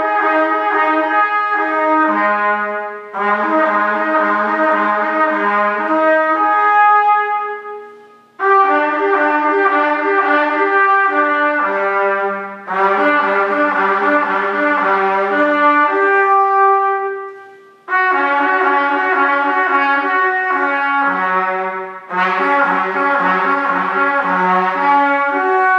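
C trumpet playing slurred lip-flexibility exercises, relatively slow and kept within one octave. The notes move down and up between the instrument's harmonics in six short phrases, each played on one breath, with a brief break between them.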